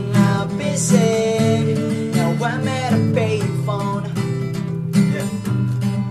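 Acoustic guitar strumming chords, with a sung vocal line over the first few seconds.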